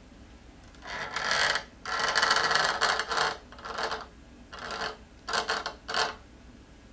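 Handling noise from shifting the heavy e-scooter around: a string of short scraping, rustling bursts with brief pauses between them.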